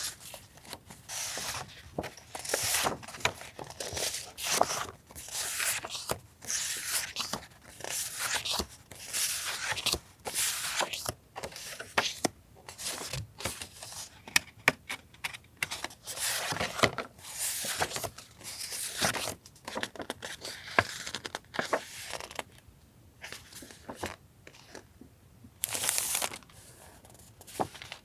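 Decorative paper sheets and stickers rustling and crinkling as they are handled, in short bursts about every second or two.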